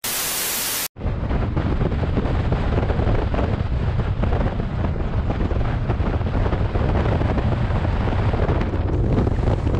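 A TV-static hiss lasting about a second, then wind noise buffeting the microphone of a camera on a Kawasaki Versys 650 at road speed, with a steady low rumble.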